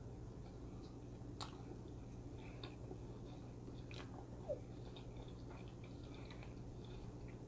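A person chewing and biting into a rib sandwich close to the microphone, faint mouth sounds with a few soft clicks. A brief squeak about halfway through is the loudest moment.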